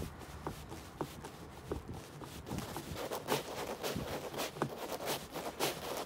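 Scattered small clicks of a Phillips screwdriver and fingers working a screw out of a car's plastic interior door panel, with the rustle of nylon jacket sleeves, heavier in the second half.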